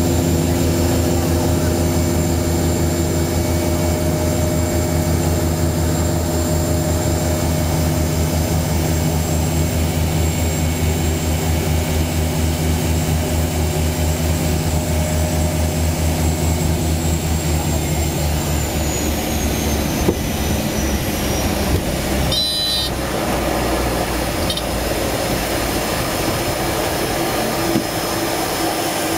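Seaplane's propeller engines droning steadily, heard from inside the cabin; about two-thirds of the way through the engine note and its high whine fall as power is cut back for landing. After a brief crackle, a rougher rushing sound of water spray joins in as the floats touch down and run along the water.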